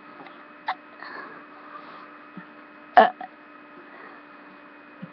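A person gives one short, loud burp about three seconds in, over a steady electrical hum.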